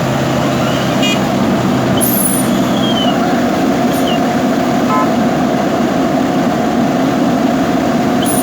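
JCB backhoe loader's diesel engine running steadily, with a few short high squeaks over it.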